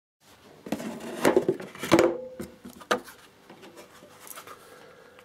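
Hard objects being handled: a run of clattering knocks and clicks, loudest about one to two seconds in, one leaving a brief ring, then fainter scraping and handling noise.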